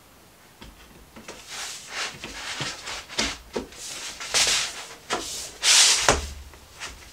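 Wooden panel of a flat-pack chest of drawers being slid along into the grooves of its white side pieces, scraping and rubbing in a series of pushes that grow louder, the loudest near the end.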